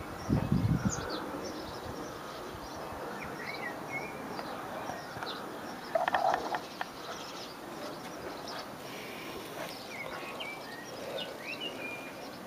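Outdoor background noise with small birds chirping now and then, short quick notes. A brief low bump comes in the first second, and a short louder burst about six seconds in.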